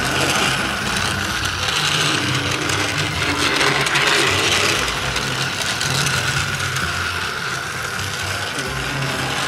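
Battery-powered toy cars' small geared motors whirring steadily as the cars run along a plastic track.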